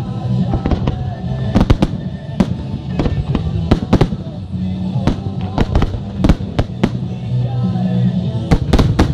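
Aerial fireworks bursting in a rapid series of sharp bangs, some in quick clusters of two or three, over music with steady low notes.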